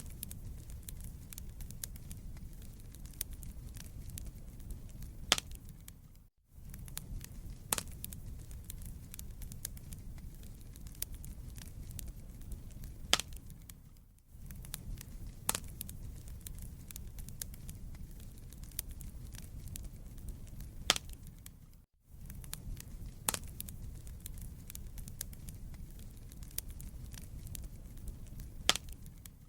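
Wood fire burning in a fireplace: a low, steady rumble of flames with sharp crackles and occasional louder pops from the burning logs. The level drops briefly about every eight seconds.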